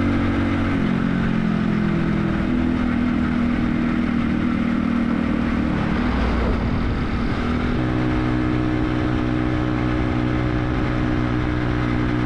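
A motor vehicle's engine running, with a steady noisy rush behind it. Its pitch drops about a second in and changes again about six to eight seconds in.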